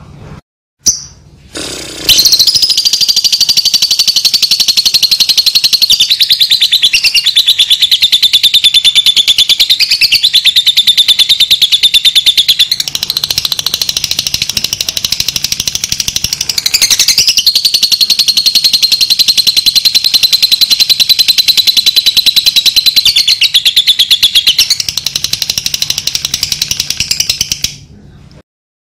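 Fischer's lovebird giving a long, unbroken, rapid high-pitched chattering trill, the continuous 'ngekek' song that lovebird keepers prize, with only brief dips in pitch and loudness; it stops shortly before the end. A short sharp click comes about a second in, before the chatter starts.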